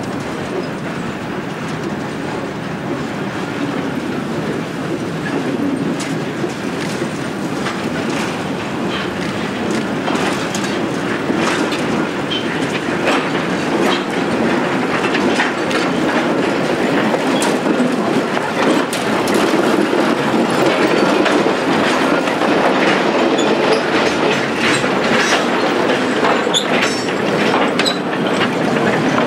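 Old narrow-gauge electric mining locomotive approaching and passing, then a long string of steel side-tipping coal cars rolling by, their wheels clicking and clattering over the rail joints. The rumble grows louder as the train nears, and the clicks come thicker in the second half as the cars pass.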